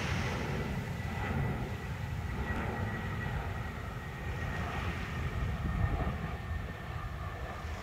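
Jet airliner on its landing approach flying past low: a steady low engine rumble with a thin high whine over it.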